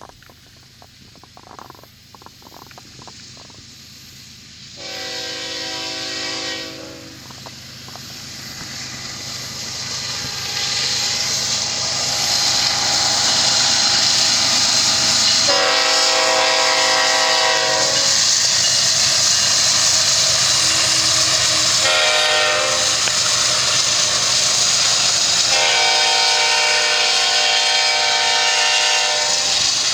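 Freight locomotive horn sounding the grade-crossing signal: two long blasts, a short one, then a long one. Meanwhile the empty tank-car train comes closer and its rushing rail noise swells from about a third of the way in and stays loud.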